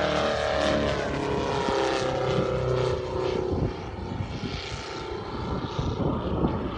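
Giant-scale RC Yak 54's Valach 420 petrol engine and propeller passing overhead, the engine note sliding down in pitch as the plane flies by. Its sound drops off and turns rougher about three and a half seconds in.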